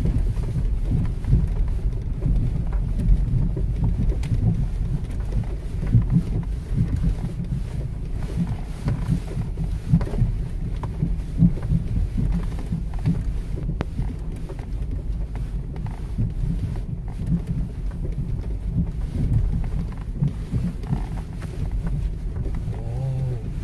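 Wind buffeting the microphone: a gusty low rumble with irregular surges.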